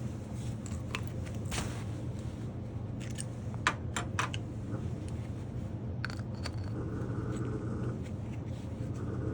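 Scattered clicks and taps of small plastic and metal parts being handled as a broken check valve is taken out of a tankless water heater, over a steady low hum.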